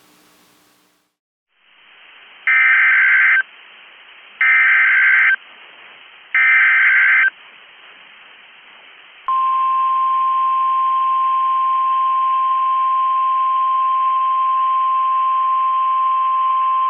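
NOAA Weather Radio Emergency Alert System header: three short bursts of screeching SAME data tones, each about a second long and about a second apart. About nine seconds in, the steady single-pitch 1050 Hz weather radio warning alarm tone starts, which signals that an urgent warning message follows. The audio is narrow and hissy, as through a radio.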